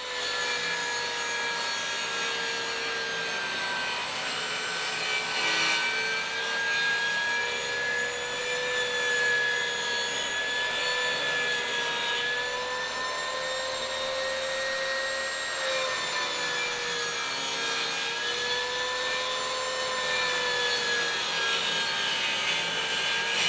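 TACKLIFE MTS01A 10-inch, 15-amp table saw running with a steady motor whine, its blade ripping a long strip of wood trim; the pitch wavers slightly now and then as the wood is fed through.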